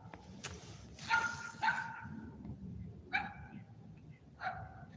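A dog barking: four short barks, the first two close together and the others spaced out by a second or more. A brief rush of noise comes about half a second in.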